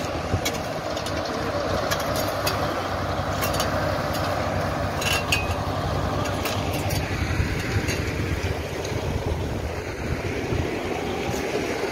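Large wheeled tractor's diesel engine running steadily at idle, with scattered clinks and scrapes of shovels on asphalt.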